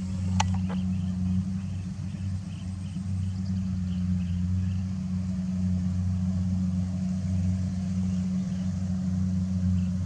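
Engine of a rice combine harvester running steadily, a constant low drone, with a single sharp click about half a second in.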